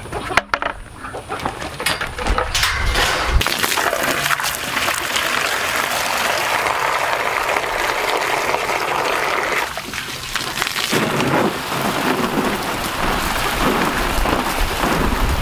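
Water spraying from a hose onto potted young trees and into a plastic wading pool: a steady splashing spray that starts about two seconds in and eases briefly near the ten-second mark.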